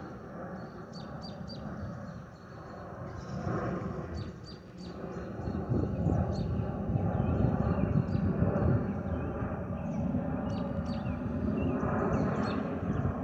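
Airbus A320neo jet with Pratt & Whitney geared turbofan engines passing overhead, its low rumble growing louder about five seconds in. Many birds chirp over it throughout.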